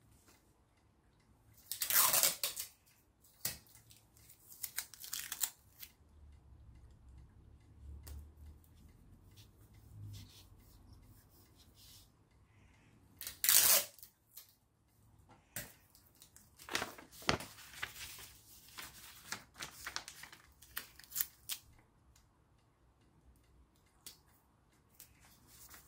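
Clear sticky tape pulled off the roll and torn in several short ripping bursts, the loudest about two seconds in and near the middle, with paper handled and pressed down between them.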